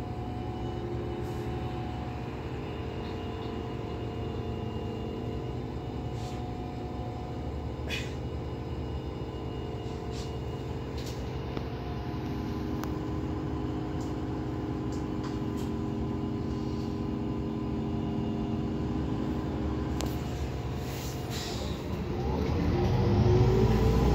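Irisbus Citelis 12 natural-gas (CNG) city bus under way, heard from inside the passenger cabin: steady engine hum and road rumble, growing louder near the end.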